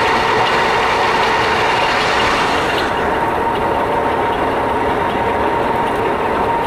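Knuth DL550B lathe running with its spindle gears engaged: a steady mechanical drone with a constant whine and faint regular ticking, which the owner reports as abnormal.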